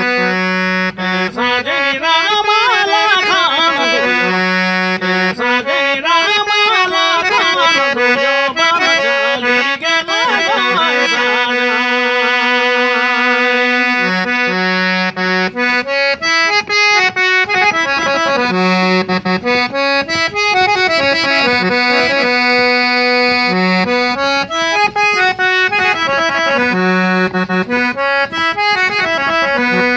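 Harmonium playing a folk melody over a held drone note, with the reedy, sustained tone of the instrument and no singing.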